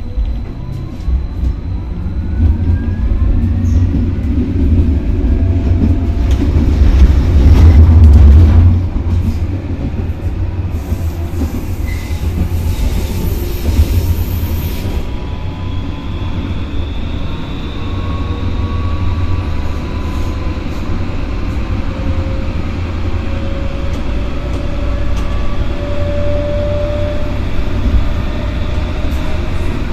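Tram-train running on rail track, heard from inside the cab: a steady low rumble of wheels on rails, with the traction motors' whine climbing in pitch as it picks up speed.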